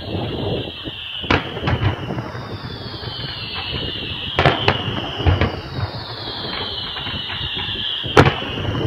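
Fireworks display: shells bursting with sharp cracks and low booms, several of them close together, over long whistling tones that slowly fall in pitch and overlap one another.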